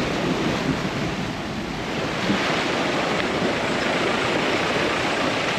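Steady rushing of a shallow, rocky mountain river as a car crosses through it.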